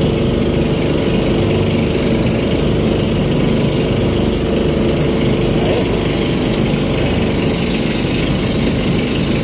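Motorized outrigger boat's engine running steadily, a constant drone with an unchanging pitch.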